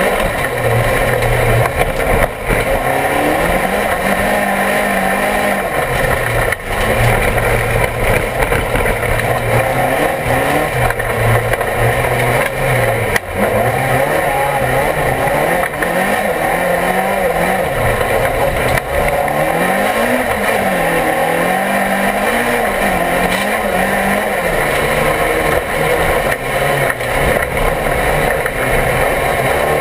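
Mercedes-Benz Supernasjonal rallycross car's engine at race speed, heard from inside the cabin, revving up and falling away over and over through corners and gear changes, with a few brief dips in level.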